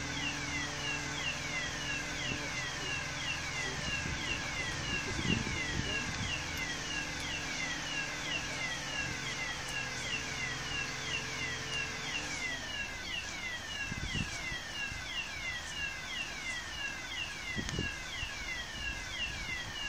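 Electronic warning alarm of heavy lifting plant giving a rapid, even series of falling chirps, about three a second, that stops at the end. Under it the mobile crane's diesel engine runs steadily, then drops away about twelve seconds in.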